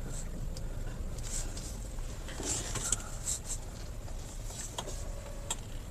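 Cabin noise of an MG Astor SUV on the move: a steady low road-and-engine rumble with scattered faint ticks and rattles, and a faint short tone near the end.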